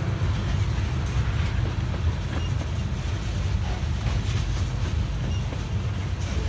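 Loaded oil tank cars of a heavy freight train rolling slowly past, their steel wheels on the rails making a steady low rumble with a few faint clicks.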